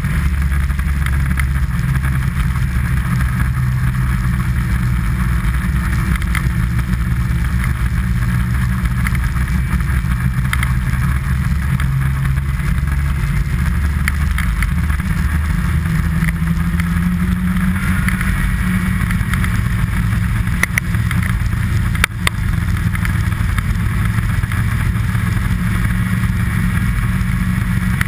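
A vehicle engine running steadily at speed, its pitch stepping up a little past the middle. A single sharp knock comes near the end.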